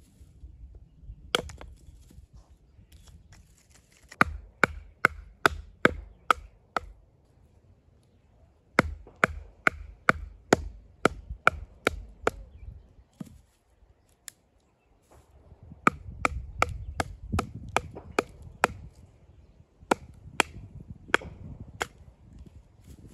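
Firewood being chopped: sharp chopping strikes in runs of about three a second, with short pauses between runs.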